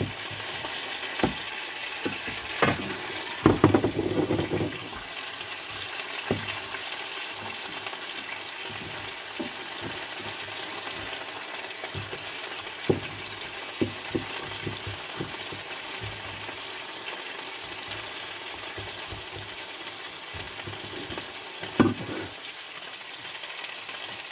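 Gilt-head bream sizzling on a hot plancha griddle, cooking on its second side after being turned: a steady frying hiss with a few sharp knocks, the loudest about three to four seconds in and near the end.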